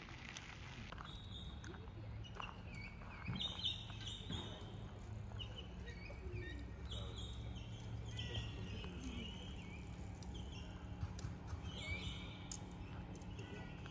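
Birds chirping and calling in short repeated phrases over a steady low hum of outdoor background noise.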